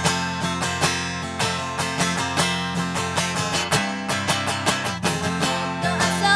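Guitar strummed in a steady rhythm of chords, the instrumental intro of a song.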